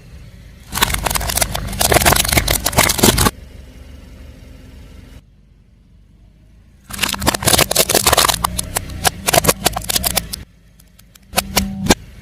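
A car tyre rolling over and crushing brittle objects: three bursts of dense crackling and snapping, the longest two each lasting a few seconds, with quieter gaps between them.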